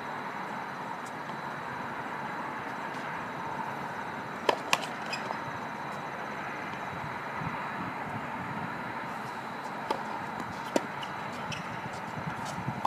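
A few sharp knocks of a tennis ball off racket strings and hard court: two close together about four and a half seconds in, and two more around ten and eleven seconds in. Under them runs a steady hiss with a faint high whine.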